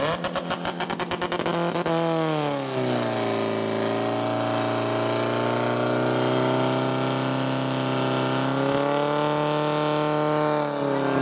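Portable fire pump's engine running hard as it pumps water into the hose lines: a rapid pulsing for the first two seconds, then a steady running note that drops in pitch about two and a half seconds in as the load comes on, rises a little later and cuts off near the end.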